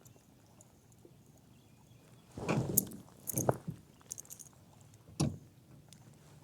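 A few short rattling knocks, irregularly spaced, starting about two seconds in.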